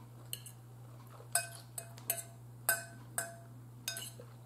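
Metal fork clinking against a bowl while picking up food: about eight short, irregularly spaced clinks, several with a brief ring.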